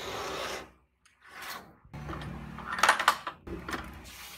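A white plastic three-tier drawer organizer scraping as it is slid across a wooden desktop, then after a brief pause another short slide and a louder clatter of several knocks as things are moved about on the desk.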